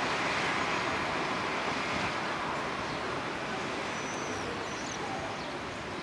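Steady, even rumble of distant city traffic heard from above the rooftops, slowly fading a little. A couple of faint high chirps come about four seconds in.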